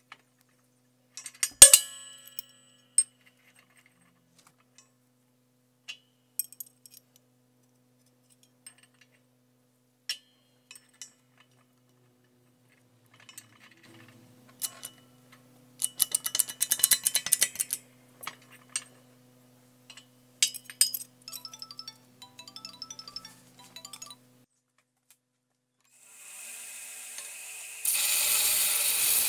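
Sharp clinks and clatter of steel parts and tooling being handled in a hydraulic press, the loudest a ringing clink early on. Near the end a belt grinder starts up and runs with a steady noise that grows louder in the last second or so.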